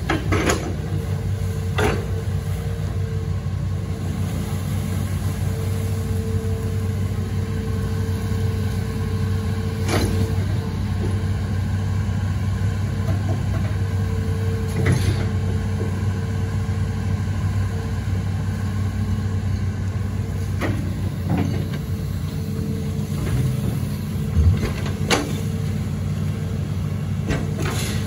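Hitachi Zaxis 210F amphibious excavator's diesel engine running steadily under working load while it digs and swings, with a steady low hum and a few sharp knocks spread through.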